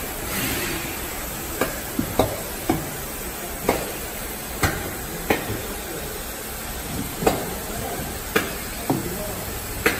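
Case labeling machine and its belt conveyor running: a steady machine hiss with about ten sharp clacks at uneven intervals as its mechanisms actuate.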